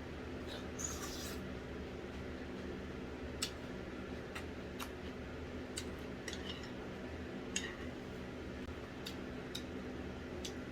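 Scattered light clicks and taps of eating utensils against dishes, about ten in all at irregular intervals, over a steady room hum.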